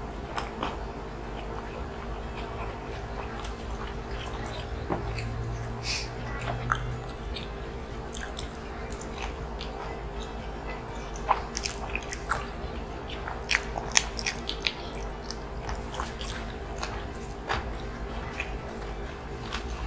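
Close-miked chewing and eating mouth sounds of two people eating lechon kawali in coconut milk with rice by hand: scattered irregular clicks and smacks over a steady low hum.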